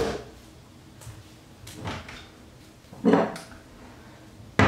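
Kitchen cabinet doors and drawers knocking as they are opened and shut: a soft bump about two seconds in, a louder clunk about three seconds in, and a sharp knock at the very end.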